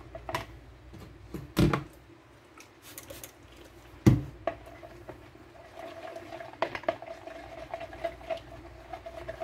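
Thin plastic stirring stick knocking and scraping against the inside of a plastic measuring cup of melted soap as it is stirred: irregular light ticks, with two louder knocks in the first half.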